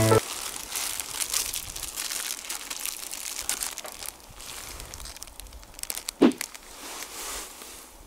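Irregular crinkling and rustling of plastic packaging as kishimen noodles are taken out and added to a hot pot over a charcoal fire. A short, pitched squeak about six seconds in is the loudest moment.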